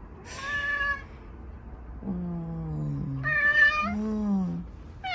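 A grey cat meowing loudly, four drawn-out meows that alternate higher and lower in pitch. The cat is agitated by an unfamiliar patch of light on the ceiling.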